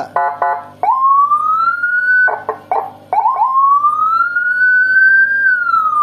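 Landun 60-watt six-tone siren module sounding loudly through its chrome siren speaker. It gives a few quick blips, then a wail that climbs in pitch for over a second and breaks into short yelps. It climbs again slowly, holds, and begins to fall near the end.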